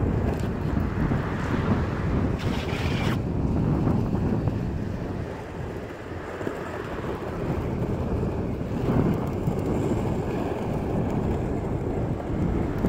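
Wind rushing over a phone's microphone while riding a skateboard down an asphalt road, with the wheels' rumble on the pavement underneath. A brief hiss comes in about two and a half seconds in.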